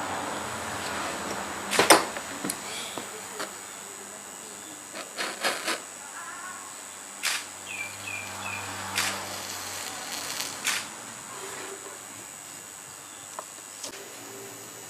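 Thin metal strips of a batik stamp block clicking and tapping as they are pressed, bent and set in place by hand and with a small hand tool. There are a handful of separate sharp clicks, the loudest about two seconds in, over a steady faint hiss.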